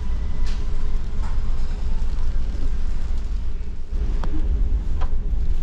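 Steady deep rumble of a large ferry under way, heard inside its passenger restaurant, with a few short clinks scattered through.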